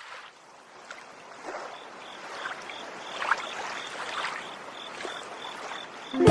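Water ambience, gently lapping or splashing, used as the intro to a song. It fades in out of silence and swells softly, with a faint high chirp repeating a few times a second, until music begins at the very end.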